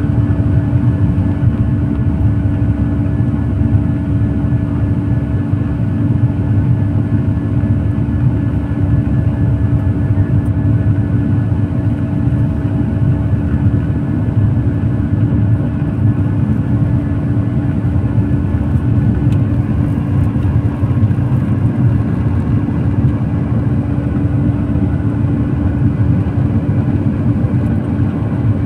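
Boeing 737 cabin noise heard from a seat over the wing shortly after takeoff: the jet engines and rushing air make a loud, steady rumble with a constant droning hum on top.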